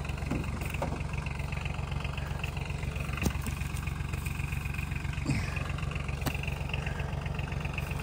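Utility vehicle's engine idling steadily, a constant low hum, with a couple of faint light knocks over it.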